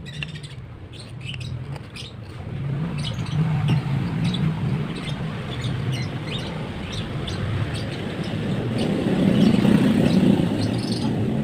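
A motor vehicle driving past, its engine rumble building to its loudest about nine seconds in and then easing off, with birds chirping over it.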